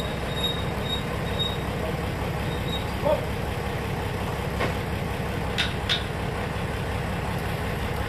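Sawmill machinery running with a steady low drone, and a few sharp clicks a little past the middle.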